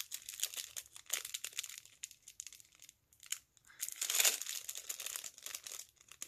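Small clear plastic jewelry bag crinkling and rustling as fingers work it open, in uneven bursts, loudest about four seconds in.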